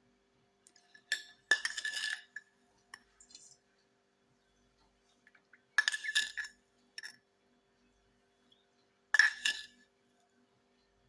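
Glass kitchenware clinking: glass jars or bottles knocked against each other and set down, in several short clusters of sharp clinks with a brief ring.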